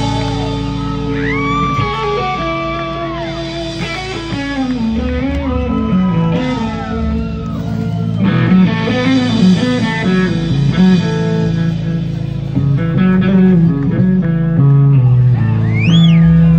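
Live blues band playing: an electric guitar carries the lead with notes that bend up and down, over bass guitar and drums with cymbals.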